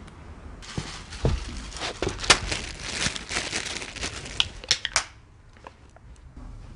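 Rustling, crackling noise with many sharp clicks and cracks, dying away about five seconds in.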